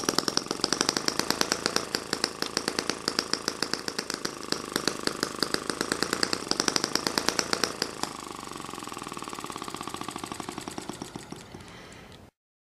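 Eachine ET5 miniature water-cooled four-stroke gasoline engine running just after being started, a fast even popping beat. About eight seconds in it drops in level, then dwindles and cuts off near the end.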